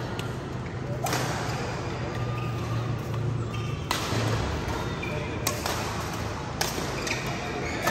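Badminton rackets striking a shuttlecock during a doubles rally: about five sharp cracks, one to two and a half seconds apart, each ringing briefly in a large hall.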